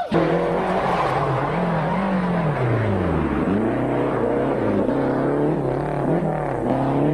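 Rally car engine at full stage pace, its pitch climbing and dropping repeatedly through gear changes. About three seconds in the note falls away low as the driver lifts off, then picks up again.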